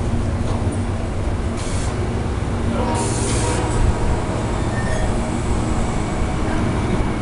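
Amtrak Silver Star passenger cars rolling past at close range: a steady rumble of steel wheels on the rails, with short hissing spells about one and a half and three seconds in.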